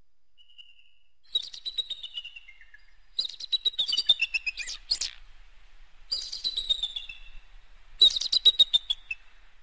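Bald eagle calling: after one short high note, four bouts of rapid, high piping chatter, each run of notes falling in pitch.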